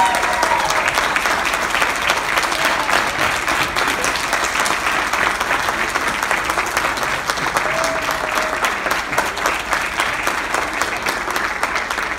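Church congregation applauding steadily after a sermon ends.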